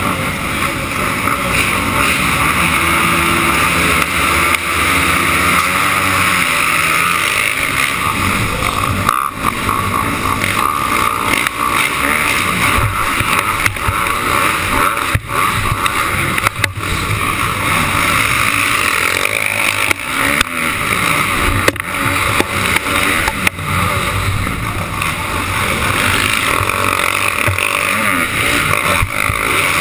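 Dirt bike engines revving at the start line, then the engine of the camera bike running hard at racing speed, rising and falling with the throttle.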